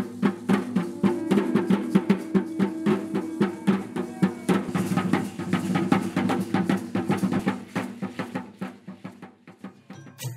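Drum-led music: fast, steady drumming, about five strikes a second, over sustained pitched notes, fading out near the end.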